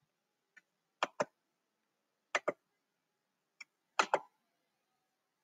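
Computer mouse button clicking: three pairs of sharp clicks, each a quick click-click, about a second and a half apart, with a couple of fainter ticks between them.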